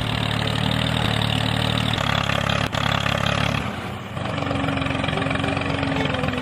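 Small motor running steadily, with a single sharp click a little under three seconds in; its sound changes about four seconds in to a higher, steadier hum.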